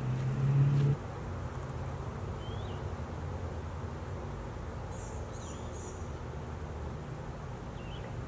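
Outdoor pond ambience: a steady low hum, with a few faint, short high chirps, three quick ones about five to six seconds in. In the first second a louder low hum steps up in pitch and cuts off abruptly.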